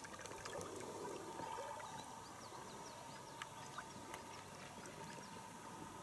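Quiet ambience of a calm forest river: a faint even hiss of water, with a few short, high bird chirps in the middle.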